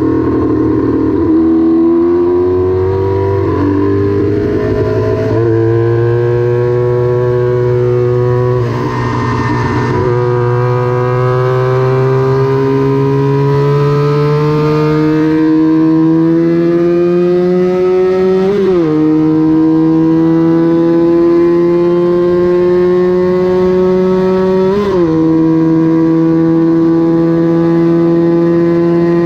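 Vintage small-displacement Honda twin-cylinder racing motorcycle engine at high revs under full throttle, its pitch climbing steadily and dropping sharply at each upshift, several times over.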